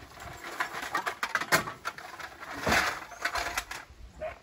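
White sacks being pushed and packed into the covered bed of a pickup truck: rustling of the sack material with scattered knocks, and a longer, louder rustle about three seconds in.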